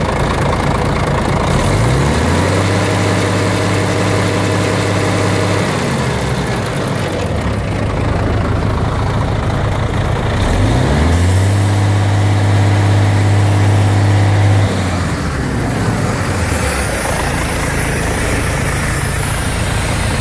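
Volvo FH12 420 tractor unit's 12-litre inline-six diesel running, revved up and held twice for about three to four seconds each, dropping back to idle between and after.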